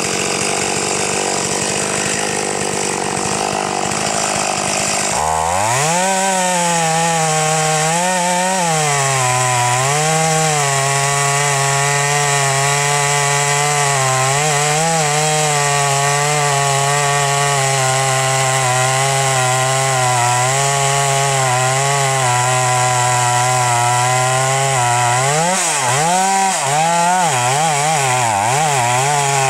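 Two-stroke chainsaw cutting into the trunk of a large standing tree during felling. About five seconds in, the engine note swings and then settles into a steady pitch as it saws under load. Near the end the pitch wavers up and down.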